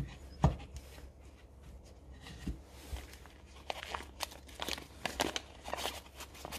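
A steel angle block knocks once as it is set down in its wooden case. Then brown wrapping paper crinkles in quick rustles as the next block is unwrapped by gloved hands.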